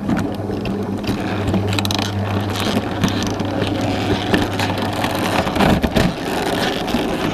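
Roller shutter's tubular electric motor starting and running, turning the roller to lower the shutter, with a steady low hum and the slats rattling as they unwind.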